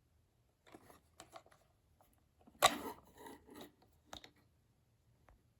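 Packaging rustling and scraping as the phone's power adapter is dug out of its box, in short bursts over a few seconds, with a sharper, louder crinkle about two and a half seconds in.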